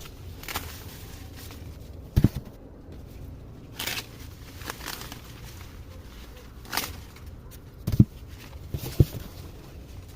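Corn plants being handled as ears of corn are snapped off the stalks: a handful of separate dry cracks and rustles of stalks and leaves, some with a dull thud, spread every second or two.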